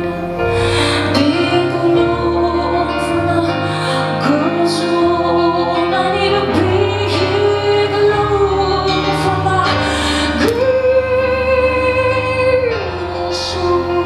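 A woman singing live with her own keyboard accompaniment, heard from the audience, with a long held sung note about ten and a half seconds in.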